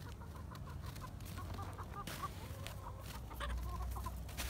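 Laying hens, Leghorns among them, clucking softly as they come out of the coop: a string of short, quiet clucks.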